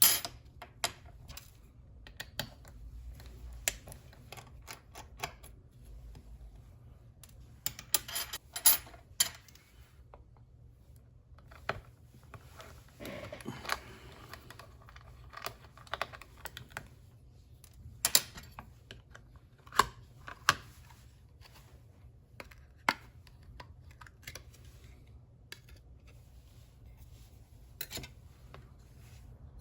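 Irregular clicks, taps and light clatter of small plastic and metal parts handled during hard-drive removal, with a brief stretch of scraping about halfway through.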